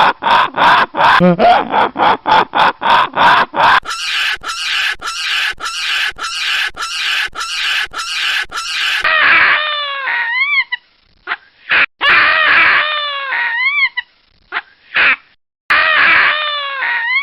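Baboons calling: a rapid series of grunts about four a second, then after an abrupt change in sound another rhythmic run of calls, then several loud separate screams that rise and fall in pitch.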